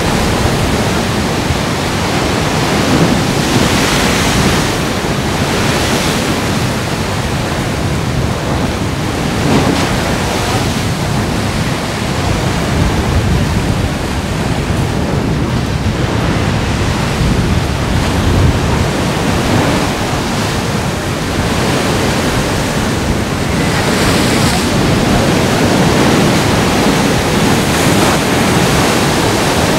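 Sea surf crashing on a rocky shore and surging through a channel under a rock arch, a continuous wash with several heavier surges. Wind buffets the microphone.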